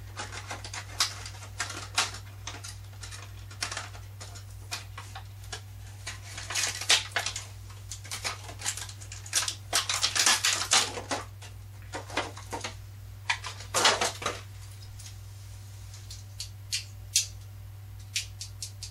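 Plastic toy packaging and hard plastic action figures being handled and pried at: irregular clicks, taps and crinkly rustles coming in clusters. A steady low electrical hum runs underneath.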